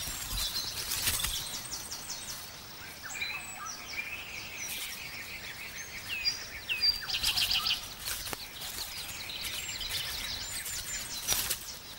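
Forest ambience of several birds chirping, with short fast trills and quick falling whistles over a soft background hiss, and a few faint clicks.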